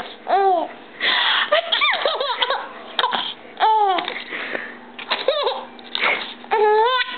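A young child laughing in repeated short, high-pitched peals, with breathy gasps between them.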